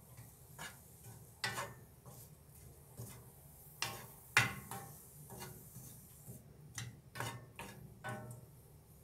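Wooden spatula stirring and scraping egg bhurji in a frying pan, with irregular taps and scrapes against the pan; the loudest knock comes about four and a half seconds in.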